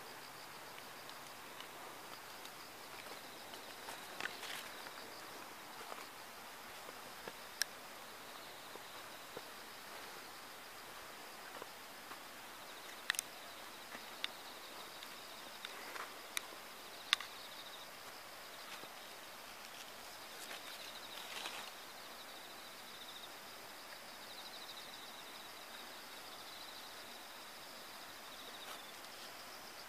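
Steady high-pitched insect chirring with a fine pulsing texture. A few sharp clicks and brief rustles stand out over it, the loudest about 13 and 17 seconds in.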